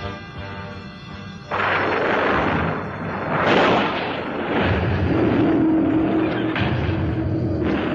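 Dramatic soundtrack music that cuts off about one and a half seconds in, giving way to a sudden loud blast-like rushing sound effect that swells again a couple of seconds later. It settles into a steady low hum with rumbling underneath.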